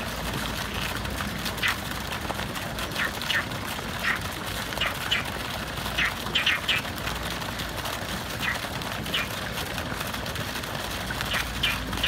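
Frogs croaking from the pond: short, separate calls scattered irregularly, some coming in quick runs of two or three.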